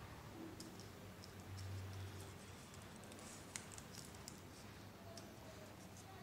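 Faint handling of a sheet of paper being folded and creased: scattered light clicks and crackles.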